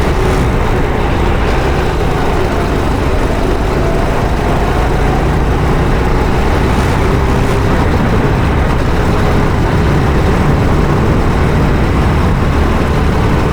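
Go-kart engine running at speed under heavy wind and rushing noise, its faint engine tone drifting up and down as the kart goes around the track.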